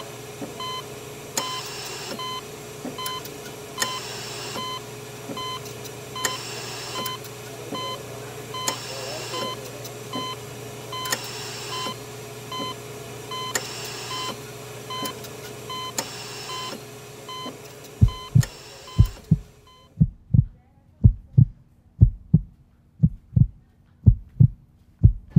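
Laid-on sound design: a regular electronic beeping, like a patient monitor, over a steady low hum with a soft hiss every two or three seconds. About 18 seconds in it gives way to a heartbeat sound effect, double thumps at roughly one pair a second.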